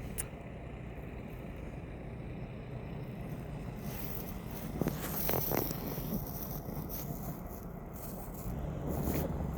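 Low, steady rumble of an arriving diesel train, growing louder near the end. Brief scraping noises about five seconds in.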